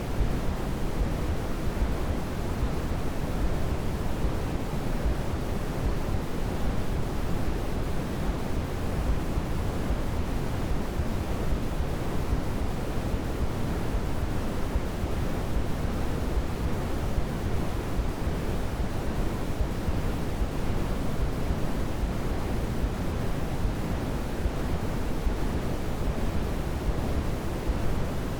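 Steady generated white noise for baby sleep: a soft, even hiss weighted toward the low end, unchanging throughout.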